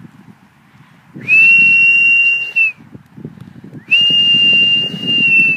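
A person whistling two long, loud, piercing notes close by, each held at one steady high pitch for about a second and a half with a short slide at its start and end, the second note starting about a second after the first stops.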